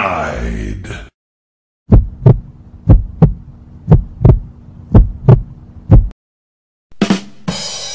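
Heartbeat sound effect: a lub-dub double thump about once a second, five beats over a low steady hum, starting about two seconds in. A sweeping sound effect fades out in the first second and another effect starts near the end.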